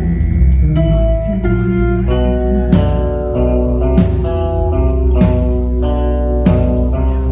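A band playing live: guitar notes held over a heavy bass, with drum hits about every second and a quarter coming in partway through.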